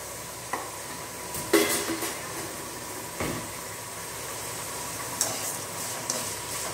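Perforated metal spoon scraping and knocking against a metal kadai while stirring vegetables, with the vegetables sizzling steadily in hot oil as they sauté. A few sharp knocks stand out, the loudest about a second and a half in.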